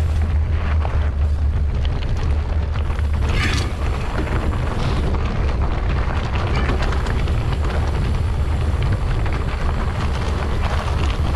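Heavy wind rumble buffeting a camera microphone on a moving bike, with rattles and knocks from riding over rough trail.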